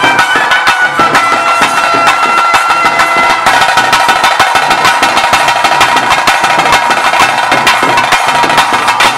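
Traditional ritual music: fast, dense drumming with a high reed pipe playing a wavering melody. About three seconds in, the pipe drops back and the rapid drum strikes take over.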